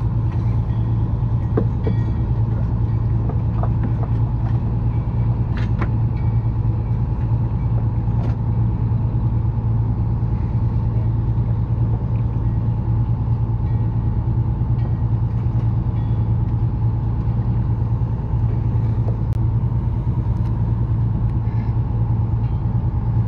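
Fishing boat's engine running with a steady low drone, with a few faint ticks and knocks from handling the rod.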